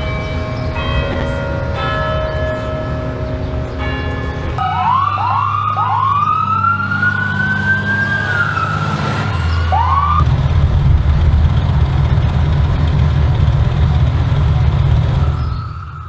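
A played-back compilation of loud everyday noises. It opens with steady horn-like tones that change pitch a few times. Then, from about five seconds in, an emergency vehicle siren wails up and down. After that a motorcycle engine rumbles low until the sound drops off near the end.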